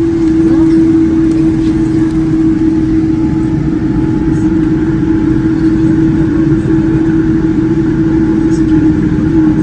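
Boeing 787-9 jet engines heard from inside the economy cabin: a loud, steady drone with a constant low hum tone running through it.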